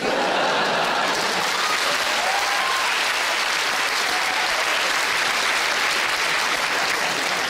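Theatre audience applauding, breaking out suddenly and holding steady, with laughter among the clapping.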